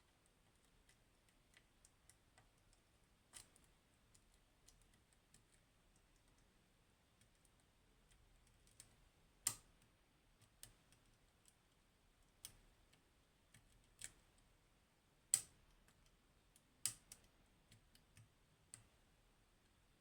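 Faint, scattered metallic clicks and ticks of a lock pick probing the pins of a Goal Z pin tumbler lock, with a few sharper clicks in the second half.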